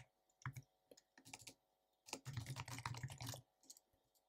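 Faint keystrokes on a computer keyboard: a few scattered taps, then a quick run of typing about two seconds in, trailing off into a few light clicks.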